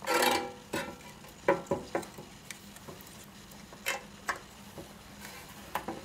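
Handling noise from spring-ended metal retaining straps and a glass still boiler on a metal stand: a short clattering rattle at the start, then scattered light clicks and knocks as the parts are fitted.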